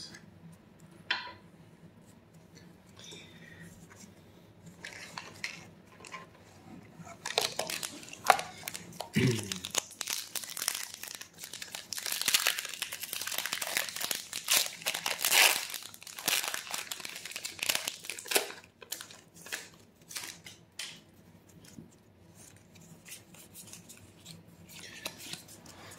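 A foil Pokémon booster pack wrapper being torn open and crinkled, a dense stretch of crackling in the middle, with lighter scattered crinkles and clicks of handling before and after.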